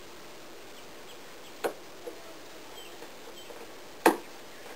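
Plastic cowl trim pieces clicking as they are pressed together at the base of the windshield: two sharp clicks about two and a half seconds apart, the second one louder.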